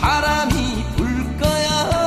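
Background song: a singer holding long notes with vibrato over a steady beat of about two strokes a second.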